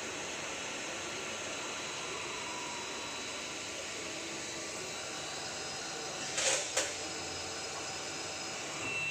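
A multifunction fish halving machine with conveyor belts running, making a steady machine noise. About six and a half seconds in come two short sharp knocks, close together.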